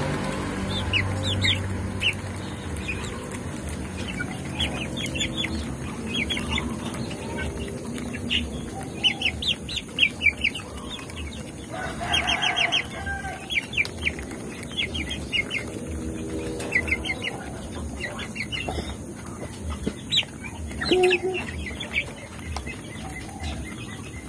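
Domestic hens clucking and calling in short, quick notes as they feed, with low murmuring stretches and one louder call about twelve seconds in.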